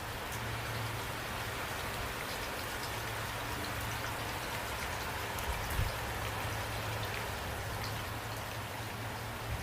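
Steady rain: an even hiss with separate drops ticking through it, over a steady low rumble. A brief low thump comes a little past the middle.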